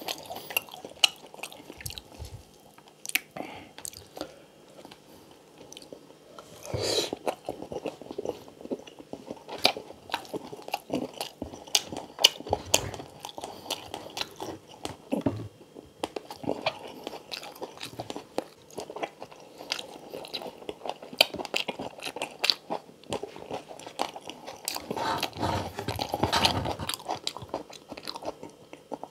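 Close-up chewing and crunching of crispy pata (deep-fried pork knuckle) and rice, with many short sharp crackles of the crisp skin between softer chewing. The crunching comes thickest in spells about seven seconds in, again around ten to thirteen seconds, and near the end.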